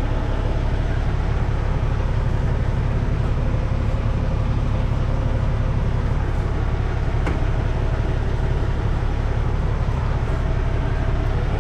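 Steady low rumble of a semi truck's diesel engine idling, heard from inside the cab. There is a single sharp click about seven seconds in.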